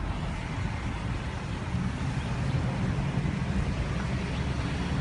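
Steady low rumble of vehicle noise from cars nearby.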